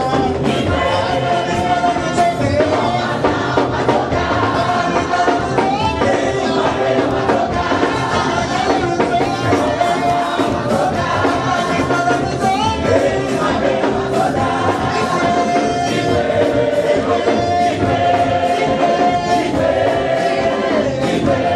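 Live gospel praise music: a congregation and singers singing along over a band with percussion.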